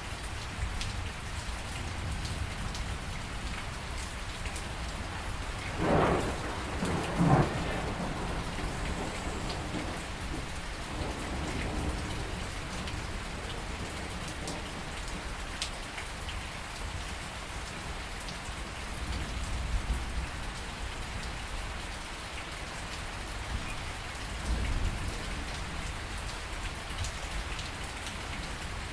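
Thunderstorm: steady rain falling, with two sharp claps of thunder about six and seven seconds in, and low rumbles of thunder later on.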